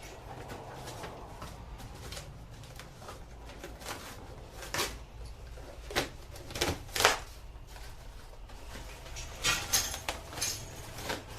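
Scattered sharp knocks and clanks of steel engine hoist parts being handled and fitted together during assembly, a few single hits through the middle and a quick cluster near the end.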